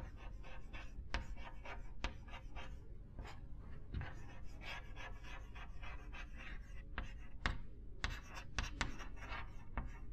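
Chalk scratching on a chalkboard as words are written out in quick strokes, with several sharp taps of the chalk against the board.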